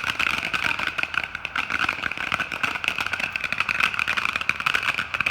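A lit ground firework, a fountain type, hissing and crackling steadily with a dense spray of small pops.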